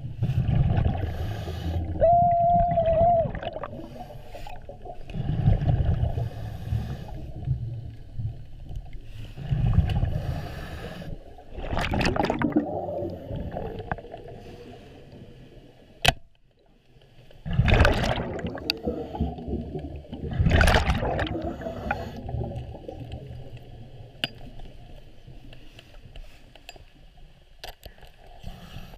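Underwater sound through a submerged camera: water rushing and knocking against the camera in repeated low surges every few seconds as the diver moves, with a few sharp clicks and a brief steady tone about two seconds in.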